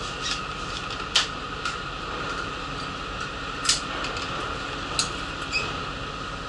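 Steady hum inside a city bus, broken by about five sharp clicks and rattles, the loudest a little over a second in.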